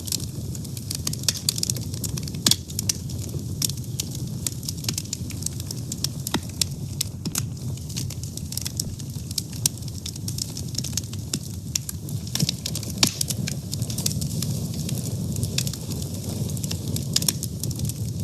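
Fire burning, with frequent sharp crackles and pops over a steady low rush of flame.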